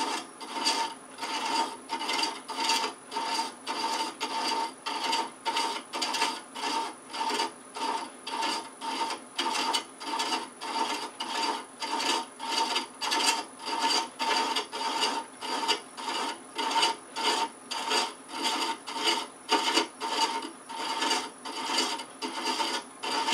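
A hand thread chaser rasping against the rim of a spinning wooden box on a slow-turning lathe, in even repeated strokes, about two a second. These are the first light passes that start a male thread.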